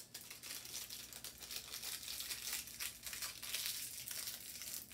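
Small sweet's wrapper crinkling in the hands as it is handled and pulled apart. There is a continuous run of small crackles, busiest in the second half.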